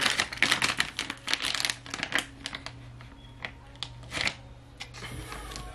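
Plastic bait packaging crinkling and crackling as a soft swimbait is worked out of its stapled bag. The crackles are dense for the first two seconds, then come as scattered single crackles with a short flurry about four seconds in.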